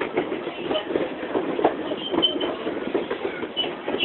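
Train coach rolling along the track: a steady rumble of wheels on rail with irregular clicks and knocks, and a few short high squeaks about halfway and near the end.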